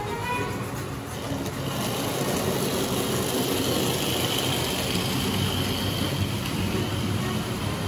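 H0 model train running on the layout's track: a steady rumble of wheels on rail with a faint motor whine, growing louder about two seconds in.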